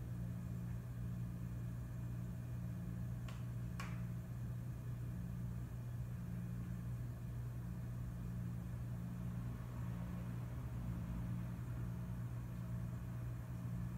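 Hotel room tone: a steady low hum, with two faint ticks about half a second apart between three and four seconds in.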